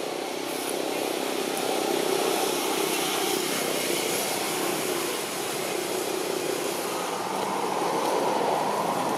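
A steady engine drone that swells slowly and holds, with no distinct knocks or beats.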